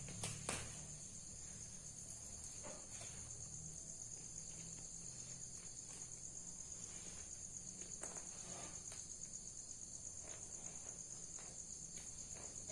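Insects, crickets by the sound of it, chirping in a steady high-pitched pulsing drone, with two brief clicks near the start.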